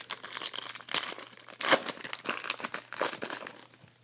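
Foil trading-card pack wrapper crinkling as it is handled, in dense, irregular crackles that are loudest a little under two seconds in.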